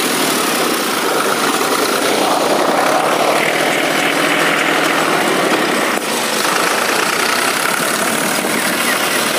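Fiat 480 tractor's diesel engine running steadily while the tractor is driven along, with a short dip in level about six seconds in.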